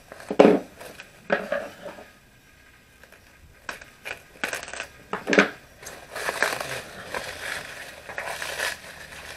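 A basin and its cover being handled as the rising beignet dough is covered: about five clinking knocks with a short ring in the first five seconds or so, then a stretch of rustling.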